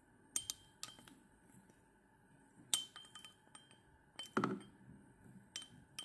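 Faint, scattered metallic clinks and taps from metal fly-tying tools at the vise, several leaving a brief high ring, with a louder cluster of taps about four and a half seconds in.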